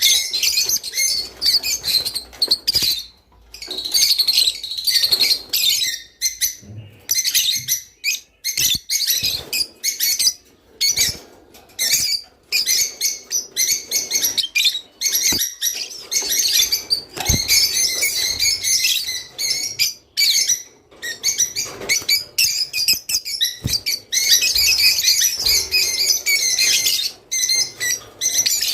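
A flock of rosy-faced lovebirds chirping, a dense, shrill chatter of rapid chirps with short pauses, plus a few sharp knocks.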